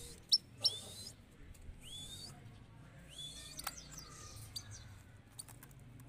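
Himalayan goldfinches giving faint, scattered short chirps and curving call notes, spaced a second or so apart rather than in a full song.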